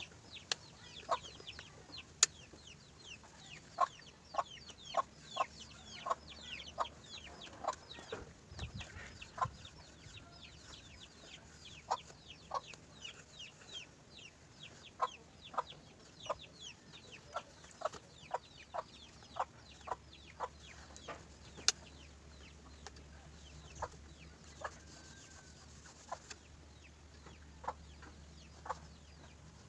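Faint bird calls: scattered short chirps and clucks, about one or two a second, over a quiet background.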